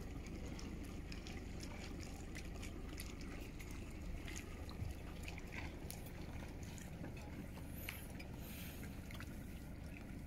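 Steady low rumble of a tour boat, with water lapping and light splashing in many small ticks.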